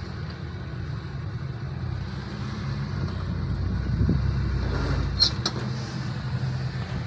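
Ford Explorer's engine running at low revs as it crawls over rock, swelling briefly about four seconds in. A few sharp clicks follow soon after.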